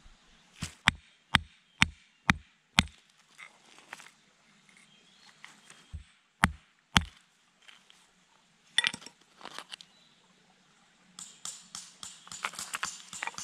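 A rock hammer striking a layered stone slab to split it: six sharp strikes in about two seconds, then three more about four seconds later. After them comes a clatter of rock pieces being handled. Near the end there is scraping and crackling as the slab is prised apart along its layers.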